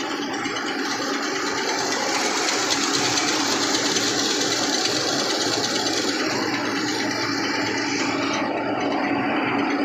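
Tractor-driven mini rice mill running under load, its huller and polisher turning steadily, with the tractor engine held at about 1500 rpm for hard paddy. A steady rushing hiss runs over the machine noise and drops away about eight seconds in.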